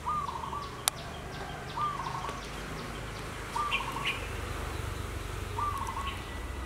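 A bird calling, one short trilled note repeated about every two seconds, four times. There is a sharp click about a second in.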